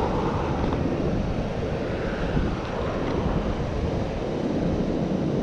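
Wind buffeting the microphone of a chest-mounted GoPro, a steady low rumbling rush.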